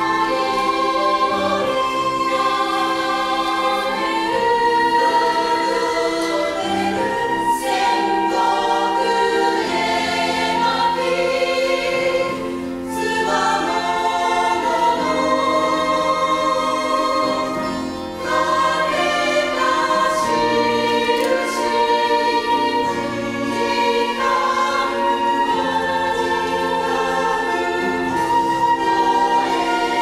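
Choir of mostly women's voices singing a Japanese song in Japanese, accompanied by piano and acoustic guitars. The singing runs in long phrases, with two brief breaks between phrases, about twelve and eighteen seconds in.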